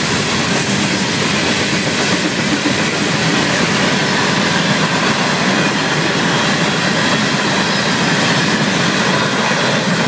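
A long string of Florida East Coast freight hopper cars rolling past at speed. Their steel wheels make a loud, steady noise on the rails.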